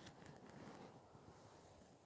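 Near silence, with faint rustling and a few soft ticks in the first second.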